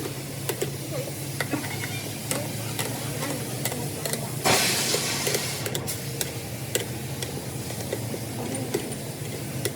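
A steady low mechanical hum with scattered small clicks and knocks, and a short burst of hiss about halfway through.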